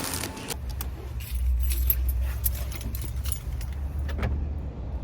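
Keys jangling, with a few sharp clicks, over a steady low rumble.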